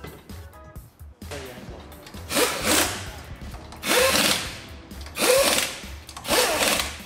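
Cordless impact wrench run in four short bursts on a wheel's nuts, each burst starting with a rising motor whine.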